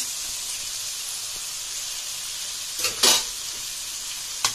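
Onion-tomato masala with fried brinjal sizzling steadily in a pan on a low flame while cooked basmati rice is tipped in from a steel bowl. A louder rush of noise comes about three seconds in, and a short knock near the end.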